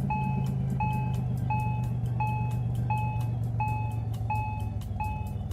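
A cartoon truck's reversing alarm beeping steadily, about eight short beeps that stop near the end, over a low engine hum: the truck is backing up.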